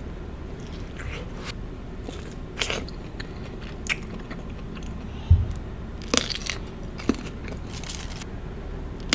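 Close-miked eating: crunchy bites and chewing, in short crackly spurts about a second apart, with one dull thump about five seconds in.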